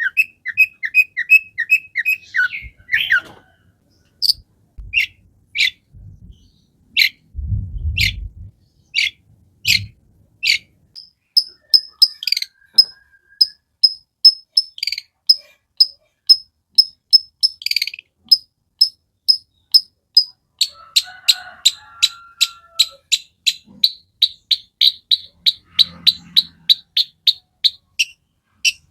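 Long-tailed shrike (cendet) in full song: a long run of short, sharp, repeated notes, starting as a quick trill, then single notes about half a second apart, then a steady faster chattering train near the end. A few low bumps sound about a third of the way in.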